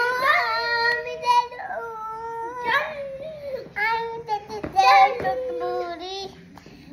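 A child's voice singing a melody, holding long notes that glide up and down, with a short break near the end.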